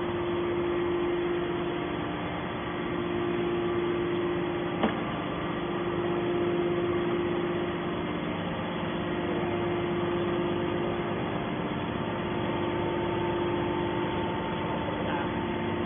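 Hydraulic scrap metal baler running steadily, a constant mechanical drone with a steady hum, and a single sharp click about five seconds in.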